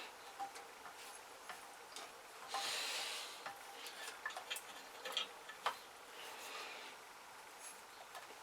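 Faint scattered clicks and brief rubbing of small metal engine parts being handled, with a short scraping rustle about two and a half seconds in.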